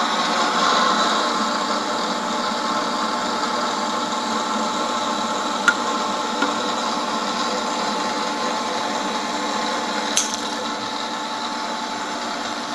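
Milling machine running steadily, its spindle cutting a workpiece, with a sharp click a little under six seconds in and a brief swish about ten seconds in.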